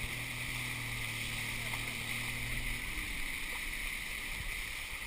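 Rushing water and wind noise as an inflatable banana boat is towed at speed over the sea, with a low steady hum underneath that stops about three seconds in.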